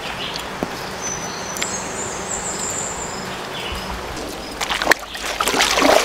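Steady riverside background of running water, with a high thin whistling call for about two seconds early on. In the last second and a half, louder irregular splashing as people wade through shallow river water.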